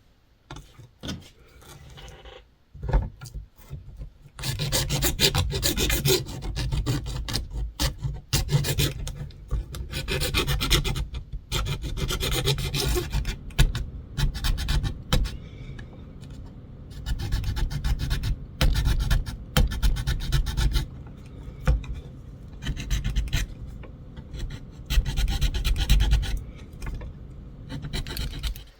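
A hand file is stroked back and forth along the rough sawn edge of a pickup hole in a guitar pickguard, smoothing and straightening the coping-saw cut. A few light strokes come first, then steady repeated filing strokes from about four seconds in.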